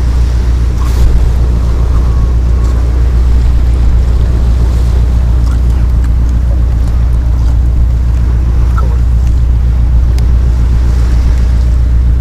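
A steady, loud low drone with no break, with a few faint small clicks on top.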